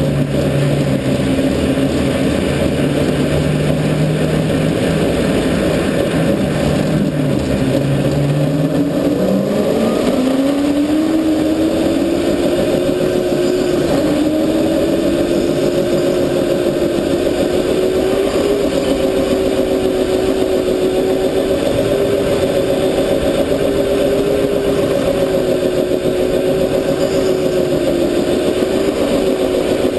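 Rental go-kart motor heard from on board the kart. It runs at a low steady pitch, then speeds up with a rising whine about eight seconds in and holds a higher pitch with brief dips as the kart laps, over a constant rushing noise.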